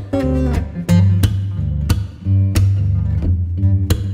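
Background music: a strummed guitar over a bass line with a steady beat.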